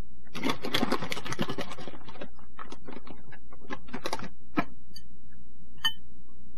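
Metal spoon clicking and scraping against a dish while chopped green onions are scooped and added: a quick run of clicks for the first couple of seconds, then a handful of separate taps.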